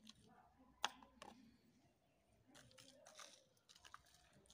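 Salt being sprinkled from a metal spoon over fresh coriander and dill in a pot: faint rustling of grains and leaves, with a sharp click about a second in and a few lighter ticks.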